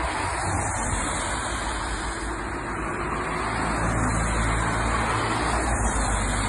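Road traffic noise: a steady rumble from a vehicle on the street, with an engine hum that grows a little louder in the second half.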